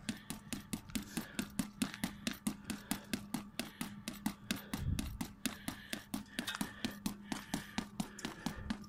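Rapid, even series of boxing-glove punches landing on a padded striking target, about four to five blows a second, each a short slap with a dull thud.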